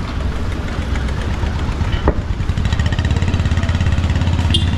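Small motorcycle engines running close by, a low, fast-pulsing rumble that grows louder as a motorcycle passes alongside. There is a brief click about two seconds in and a short high squeak near the end.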